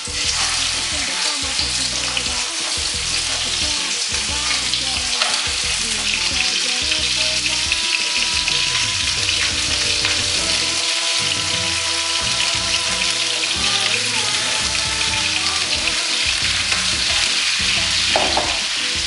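Chicken thighs and drumsticks sizzling skin-down in hot sunflower oil in a frying pan, a steady crackling hiss, as the pieces are laid in one by one to brown.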